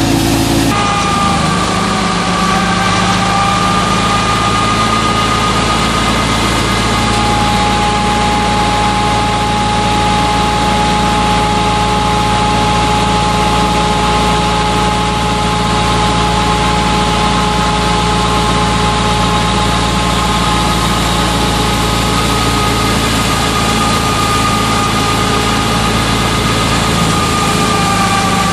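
Tractor-driven wheat thresher running steadily while being fed wheat, powered through its PTO shaft by a Fiat 640 tractor's diesel engine: a continuous low drone with a steady high whine over it.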